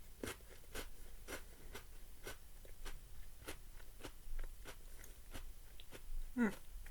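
A person chewing crunchy food, each bite crunching about twice a second. A short sound slides down in pitch near the end.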